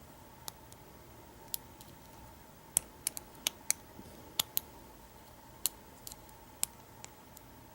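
Hook pick working the serrated pins of an American 700 series padlock under tension: about a dozen small, sharp metallic clicks at an irregular pace as pins are lifted and catch.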